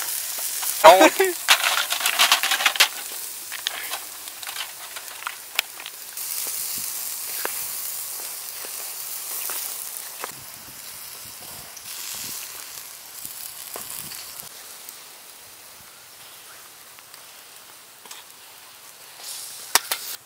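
Freshwater snails in their shells sizzling and crackling on a metal grill rack, with shells clicking against the grate in the first few seconds as they are set down. The sizzle grows fainter in the second half, broken by scattered pops.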